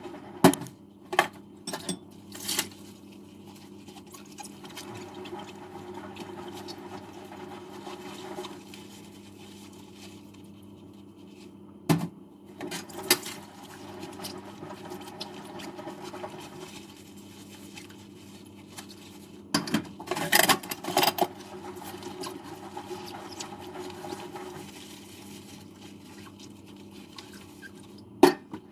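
Dishes being washed in a kitchen sink: a steady background of water under short, sharp sounds of dishes being handled, several near the start, a pair about twelve seconds in, a cluster about twenty seconds in, and one near the end.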